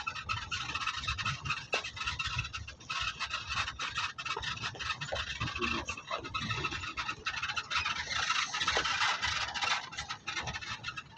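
Open safari jeep moving along a rough forest track: steady scratchy rattling over an uneven low rumble.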